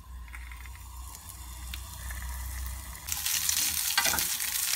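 Cubes of fresh pork fat (salo) sizzling in a hot grill pan as they begin to render, with a spatula turning the pieces. The sizzle starts suddenly about three seconds in, after a quiet stretch with a low hum.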